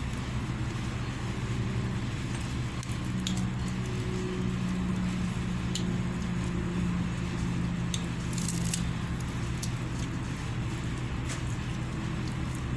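Close-up eating sounds: chewing and small crunches and clicks from biting food, over a steady low hum.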